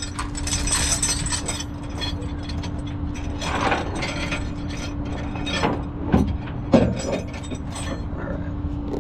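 Tow truck's winch and hydraulics running with a steady hum while metal parts clank and rattle, the sharpest knocks about six and seven seconds in, as a car is pulled onto the bed in neutral.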